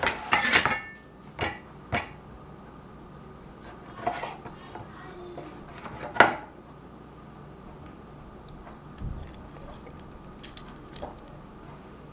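Scattered kitchen clinks and knocks of utensils against dishes, a few seconds apart, the loudest right at the start and about six seconds in.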